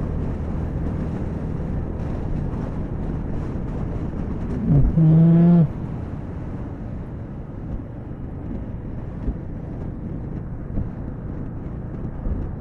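Motorcycle riding at about 80–90 km/h, heard through a helmet mic: steady wind rush and engine rumble. About five seconds in there is a brief pitched vocal sound lasting about a second.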